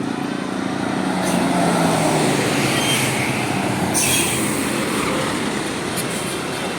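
A bus driving past: engine and road noise swelling and then easing off, the engine note falling over the first couple of seconds, with two short hisses about a second in and again near the middle.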